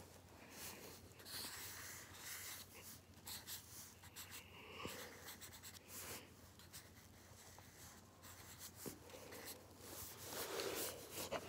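Faint scratching of markers drawing on paper, in short irregular strokes, with a louder rustle near the end.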